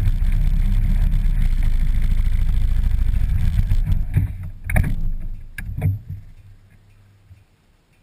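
ATV engine running steadily at low revs, a few sharp clunks about four to six seconds in, then the engine is switched off and its sound dies away.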